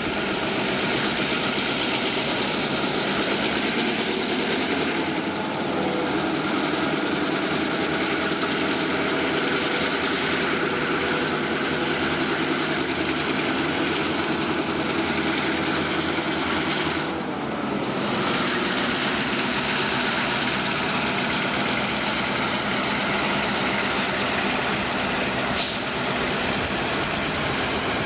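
Diesel road-switcher locomotives running steadily as they roll slowly past at close range, a constant engine drone under the train's rumble. A short sharp click near the end.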